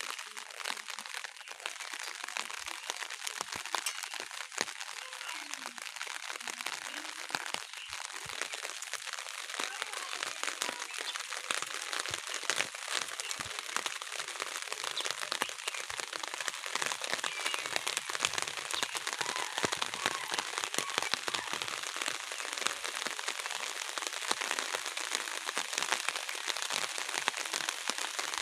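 Heavy rain falling steadily, a dense patter of drops striking surfaces, growing a little louder over the stretch.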